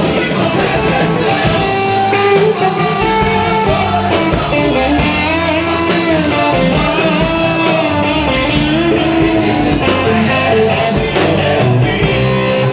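Gospel band music with a guitar prominent over a steady drum beat, and a melody line that may be a voice.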